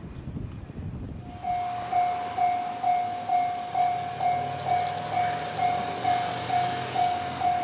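Japanese level crossing's electronic warning bell switching on about a second in, then ringing its steady repeated clang a little over twice a second.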